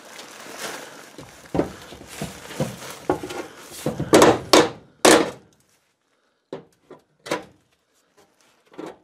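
Hammer knocking inside a kitchen sink cabinet at the old sink fittings: several light taps, then three loud blows about four to five seconds in, then a few scattered lighter knocks.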